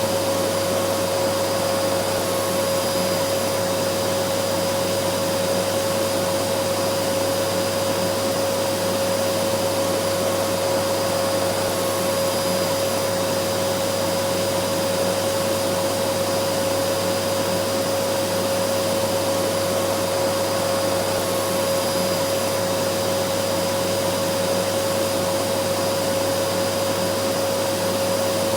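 Vacuum cleaner running continuously at a steady pitch: an even rushing noise with a constant motor whine.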